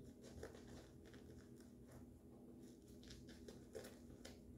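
Faint, scratchy swishes of a shaving brush working lather over the face and stubble, in quick clusters of strokes, over a steady low hum.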